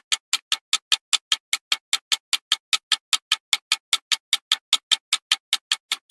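Time-bomb countdown sound effect: sharp, clock-like ticks in an even, fast rhythm of about five a second, starting abruptly out of silence.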